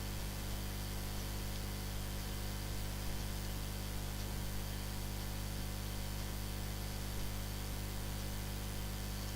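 Steady low electrical hum under an even hiss, with no other sound rising above it.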